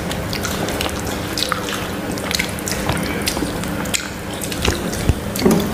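Wet clicks and smacks of eating by hand: fingers mixing rice and curry on steel plates and mouths chewing, as many small irregular clicks over a low steady hum, with a louder knock about five seconds in.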